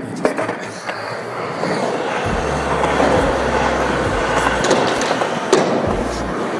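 Skateboard wheels rolling on a concrete skatepark floor: a steady rolling noise with a low rumble, a few light clicks near the start and a sharp knock about five and a half seconds in.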